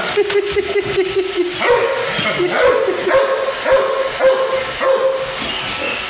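German shorthaired pointer whining and yipping in high, drawn-out tones, over the whirring and clicking of a running iRobot Roomba robot vacuum.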